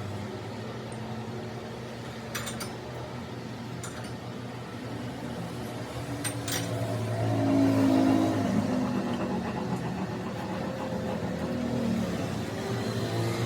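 An engine running with a steady hum that rises in pitch and loudness about seven seconds in, then settles back, with a few short metallic clicks.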